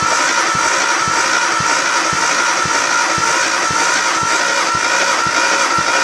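Starter motor cranking a Nissan RB-series straight-six for a compression test, a steady whine with a regular pulse about twice a second. The gauge sits on the fifth cylinder, which builds some compression, but not much.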